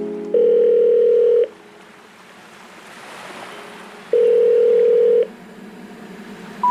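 Two steady electronic beeps at the same mid pitch, each about a second long and some three seconds apart, like a telephone ringing tone, with a soft wash of noise between them.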